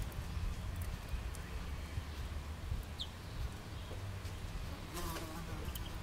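Great tits pecking at a fat ball, with scattered light taps. A short high bird chirp comes about halfway through, and a steady low rumble runs underneath.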